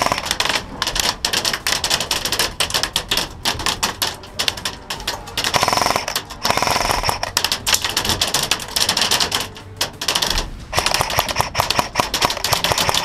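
Airsoft guns firing: a rapid, irregular clatter of sharp shot clicks, with a continuous full-auto burst about six seconds in.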